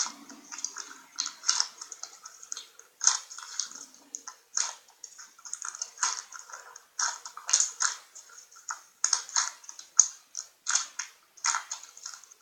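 Slime being squished and worked, giving irregular wet clicks and crackling pops.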